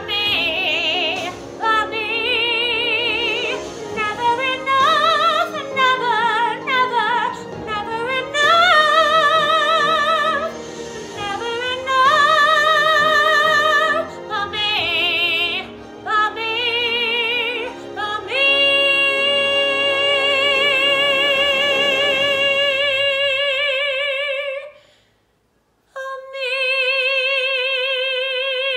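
A woman singing solo with strong vibrato over an accompaniment, building to a long held note that breaks off near the end. After a moment of silence she holds another long note, now unaccompanied.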